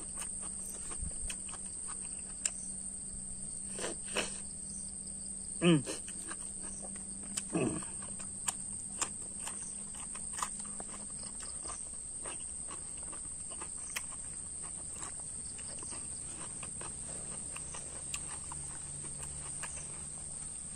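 A steady high-pitched insect drone runs throughout. Over it come small clicks and smacks of a person eating by hand, and a few short sounds that fall in pitch, the loudest about six seconds in.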